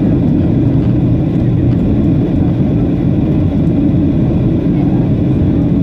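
Steady low rumble of an airliner's jet engines and airflow, heard from inside the passenger cabin in flight.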